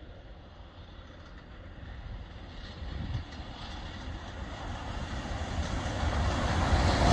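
A Railhead Treatment Train hauled by a pair of Class 37 diesel locomotives approaching. The lead locomotive's English Electric V12 engine and the wheels on the rails grow steadily louder as it nears.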